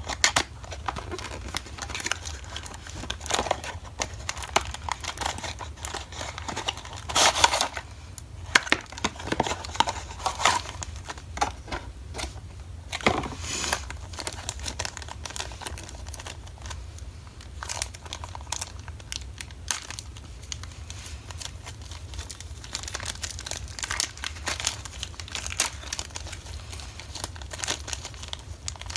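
A cardboard toy box is opened and the clear plastic bag of parts inside is handled, crinkling and crackling continuously. The crinkles are louder about seven and thirteen seconds in.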